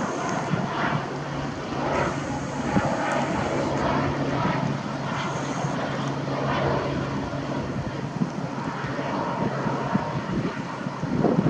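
Airplane engine droning steadily, a constant low hum.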